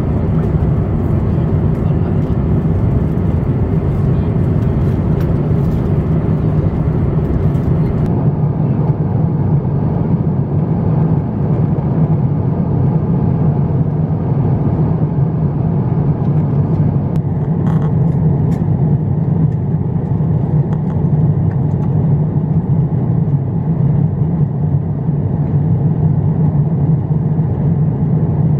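Airbus A350-900 cabin noise in flight: a steady, loud low rush of airflow and engine noise.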